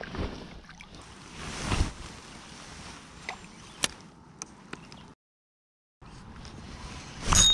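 Water sloshing beside a kayak as a small largemouth bass is released, swelling louder about two seconds in. A few sharp clicks follow, then the sound drops out completely for about a second.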